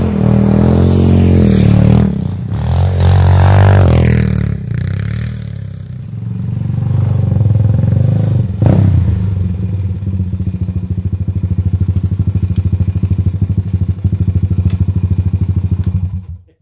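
The single-cylinder four-stroke engine of a 1985 Honda ATC 200X three-wheeler is ridden hard, revving up and down several times. A sharp knock comes about halfway through, then it runs steadily with a fast, even pulse. The sound cuts off suddenly just before the end.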